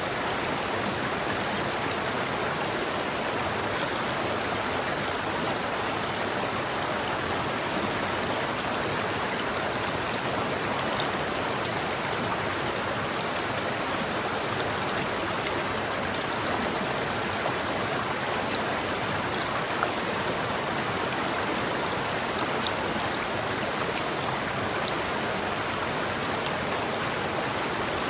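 River water flowing steadily over rocks: a constant rushing with faint small splashes.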